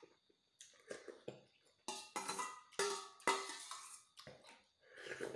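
Stainless steel ladle scraping and clinking against the inside of a stainless steel bowl, a series of separate strokes, several leaving a short metallic ring.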